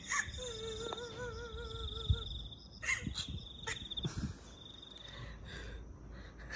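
An eerie ghost-sound clip: a wavering, moaning tone for under two seconds, starting about half a second in, over a steady high cricket-like trill that stops about four seconds in. A few handling knocks come around three seconds.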